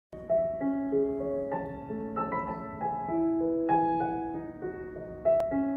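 Gentle background piano music, with slow, held notes and chords changing every second or so.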